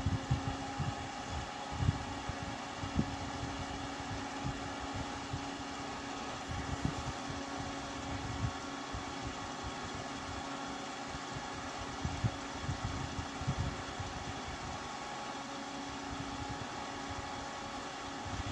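Noctua NF-P12 redux 120 mm PC case fan running steadily at its high speed setting: an even airy whir with a steady hum in it and an uneven low flutter underneath.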